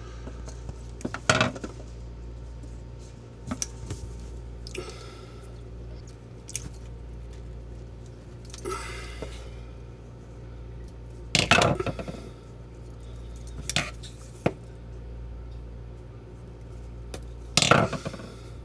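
Scattered metallic clicks, snaps and clinks of hand tools while electrical wire is stripped with a wire stripper, the loudest snaps about a second in, about eleven seconds in and near the end, over a steady low hum.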